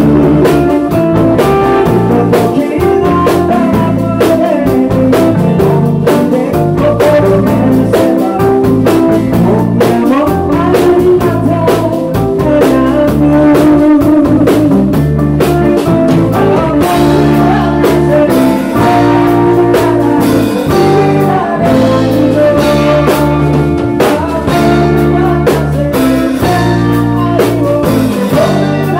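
Live rock band: a man singing lead over two electric guitars, a Rickenbacker and a Stratocaster-style guitar, and a drum kit, playing steadily and loud.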